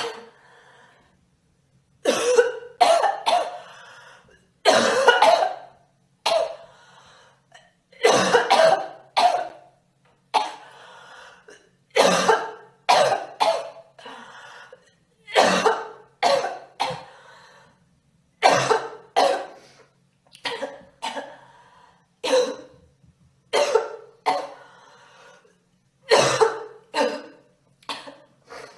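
A girl coughing over and over: short coughs, mostly in quick runs of two to four, a new run every second or two.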